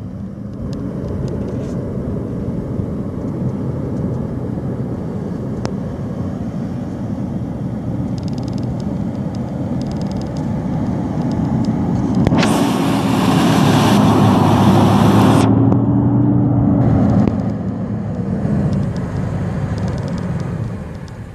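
Detroit Diesel Series 60 14-litre inline-six turbo diesel of a Freightliner Columbia semi tractor running as the truck drives slowly; its note rises about midway, then eases off. A loud hiss starts and stops sharply, lasting about three seconds midway.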